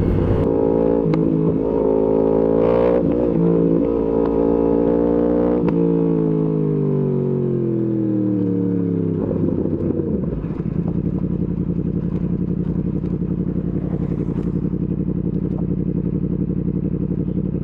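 Yamaha MT-10 SP crossplane inline-four through an Akrapovič exhaust, heard on the move. The revs are held with a couple of brief breaks in the first six seconds. The pitch then falls steadily for about four seconds as the bike slows, and from about ten seconds in the engine runs steadily at a lower note.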